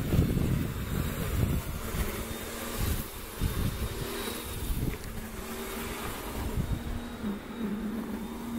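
Wind buffeting the microphone outdoors, strongest in the first second or two, with a faint steady mechanical hum in the background from about two seconds in that dips slightly in pitch near the end.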